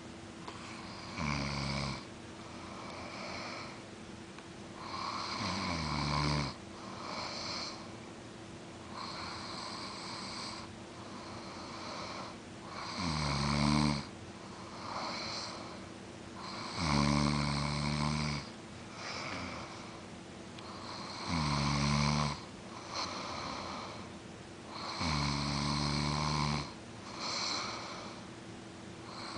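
A person asleep and snoring: a low, rattling snore about every four seconds, six in all, with softer breathy breaths in between.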